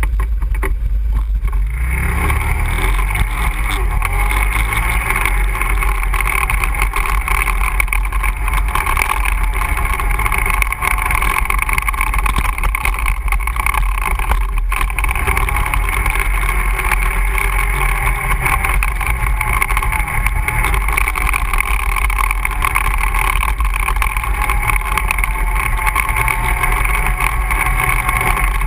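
ATV engine running steadily under way, picking up about two seconds in, over a heavy low rumble.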